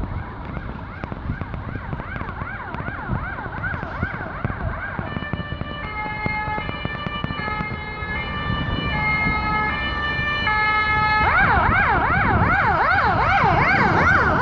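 Ambulance siren sounding: a fast warbling yelp, switching about five seconds in to a stepped alternating-tone pattern, then back to a fast yelp that is louder near the end as it comes closer. A low traffic rumble runs underneath.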